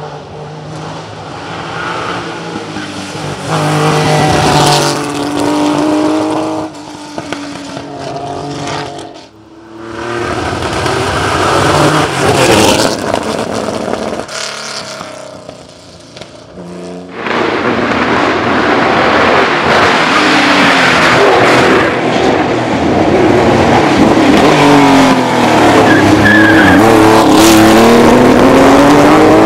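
Porsche 911 2.3 ST's air-cooled flat-six racing engine at full throttle, revving up through the gears with short drops in pitch at each shift. It fades and swells as the car comes and goes, and is loudest over the last ten seconds or so as it passes close by.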